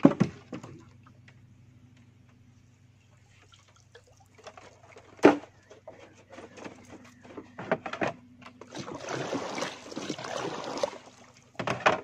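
Sharp knocks against a small boat, one at the start and one about five seconds in, with small clicks between. Water splashes and drips for a couple of seconds near the end, as when a crab trap is lifted out of the water.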